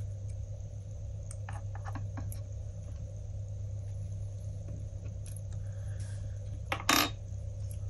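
Faint clicks of a yellow wire being worked out of the small plastic connector on an LED module, with a sharper clack about seven seconds in as a small part is set down on the wooden bench. A steady low hum runs underneath.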